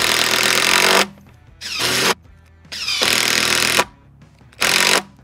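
Makita cordless impact driver driving screws into timber in four bursts of hammering, the first and third about a second long, the others shorter. Its battery is on its last bar and nearly flat.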